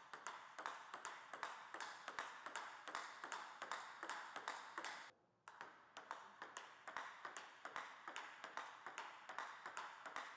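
Table tennis rally: a quick, even run of sharp clicks as the ball strikes bats fitted with Butterfly Dignics rubber and bounces on the table, with one brief gap about five seconds in.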